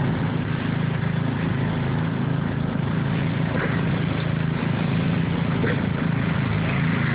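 Riding lawn mower engine running steadily at an even pitch, without revving.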